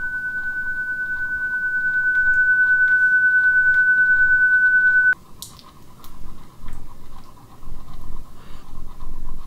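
A steady, high-pitched ringing tone, an ear-ringing sound effect, grows louder and then cuts off suddenly about five seconds in, leaving a fainter, lower tone ringing on.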